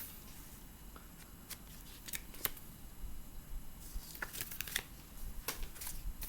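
Thin paper and card being handled and leafed through by hand: scattered light rustles and taps.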